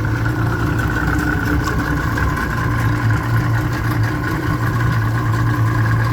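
Yamaha 250 hp VMAX fuel-injected, oil-injected V6 two-stroke outboard idling steadily, being run-tested on a freshly swapped lower unit.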